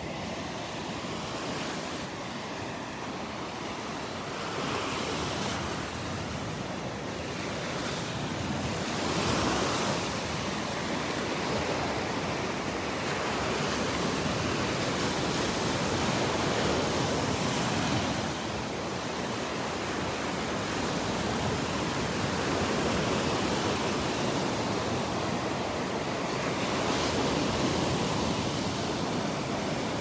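Ocean surf washing onto the beach, swelling and easing every several seconds.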